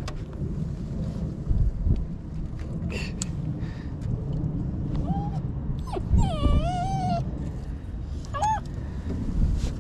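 German shorthaired pointer whining three times: a short rising whine about halfway in, a longer wavering one, then a brief one near the end. A steady low rumble of wind on the microphone runs underneath.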